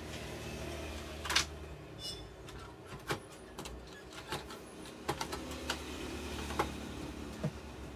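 Scattered light clicks and taps of a metal tool and fingers on the power supply board of an HP LaserJet 1020 Plus printer, coming in a quicker run about five seconds in, over a low steady hum.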